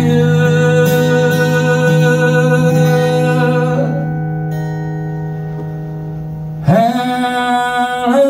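Man singing to his own acoustic guitar: a held chord and long sung note slowly fade, then about seven seconds in a new strummed chord and sung note come in loudly, the voice sliding up into the pitch.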